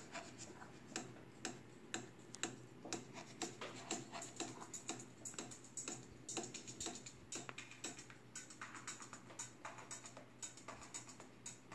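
Faint homemade electronic song playing from a computer, with a steady clicking beat.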